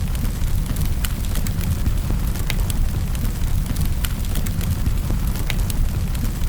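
Wood fire in a fireplace crackling, with scattered sharp pops at irregular intervals over a steady low rumble.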